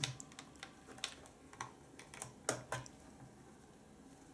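A few faint, sharp clicks and taps as a USB charging cable's plug is handled and fitted into a smartphone's charging port, most of them in the first three seconds.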